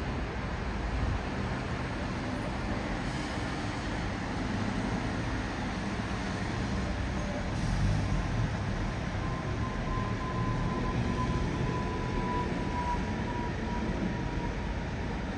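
Twin-engine Boeing 777-200ER airliner passing overhead: a steady low jet rumble, with a faint high whine that slowly sinks in pitch in the second half.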